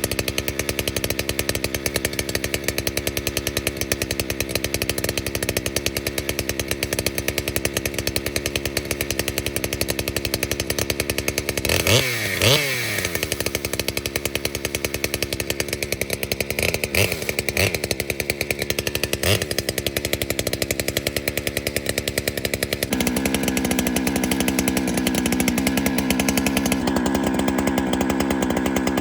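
Holzfforma chainsaw running steadily, bucking firewood from a fallen tree. About twelve seconds in the engine pitch swings sharply down and up. Around two-thirds through it settles to a lower, heavier note.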